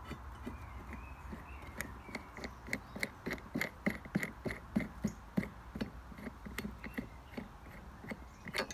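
Light metallic clicks, about three a second, as the blade's centre nut on an upturned Flymo rotary lawn mower is turned off its spindle by hand. There is a sharper click near the end.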